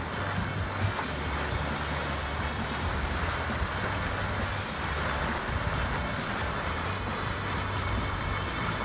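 Geothermal mud spring churning and sloshing in its steaming cavern: a steady watery wash with a low rumble underneath.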